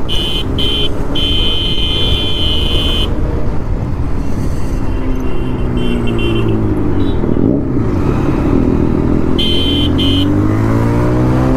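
Motorcycle engines running in traffic, rising and falling in pitch as the throttle is opened and closed, with wind rumble on the riding microphone. A high-pitched tone sounds for the first few seconds and again briefly near the end.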